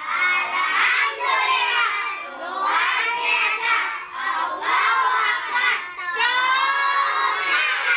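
A group of children singing a song together, loud, in short phrases with brief breaks between them.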